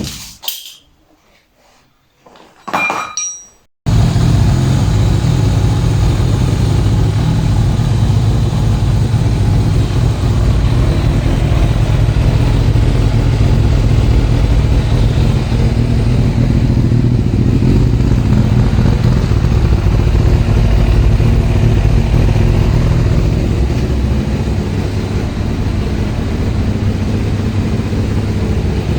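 Kawasaki ZZR1200 inline-four motorcycle engine running steadily through its newly fitted custom exhaust. The engine starts abruptly about four seconds in, after a few quieter knocks.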